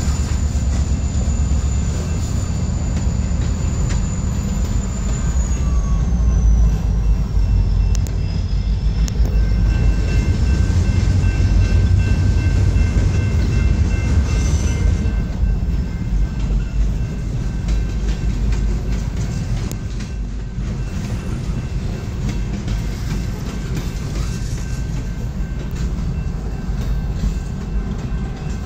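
Freight train cars rolling past: a steady low rumble of steel wheels on the rails, swelling a little in the middle and easing slightly near the end.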